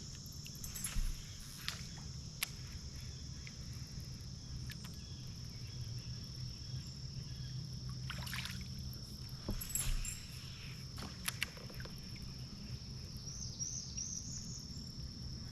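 Creek ambience from a kayak: a steady high-pitched insect drone over a low rumble, with a few short knocks and small splashes scattered through.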